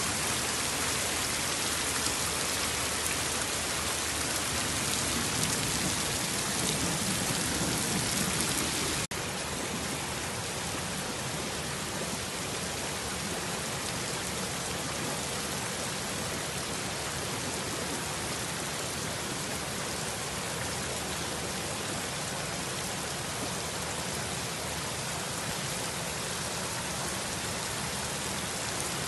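Torrential rain falling steadily onto a flooded road. The sound drops out for a moment about nine seconds in, then carries on a little quieter.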